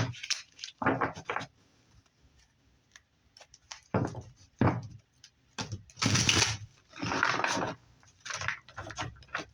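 A tarot deck being shuffled and cards drawn: a run of short papery swishes and slaps, some brief and some lasting nearly a second, with pauses between.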